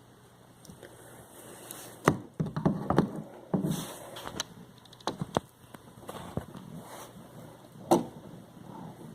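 Handling noise: scattered clicks, taps and rustles as hands work stiff electrical wires and an outlet close to the microphone. The sharpest knocks come about two seconds in and near the end.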